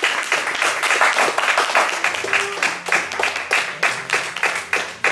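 Audience applauding, many hands clapping densely.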